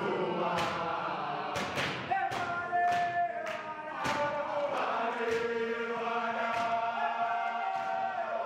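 A group of men singing a chant together in chorus, with long held notes, over a regular beat of sharp claps.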